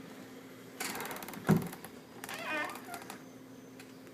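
Door swinging shut under its door closer: a short rattle, then a solid thump as it closes about a second and a half in, followed by a brief wavering squeak.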